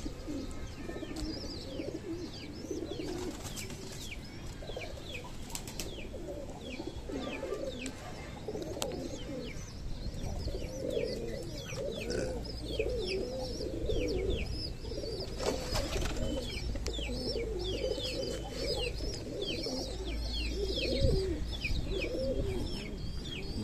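Several domestic pigeons cooing, a low wavering warble that never stops, with quick high chirps repeating above it.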